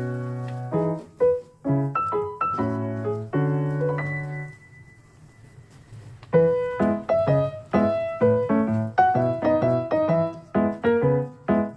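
Background piano music playing a light melody, with a short pause of about two seconds near the middle before the notes start again.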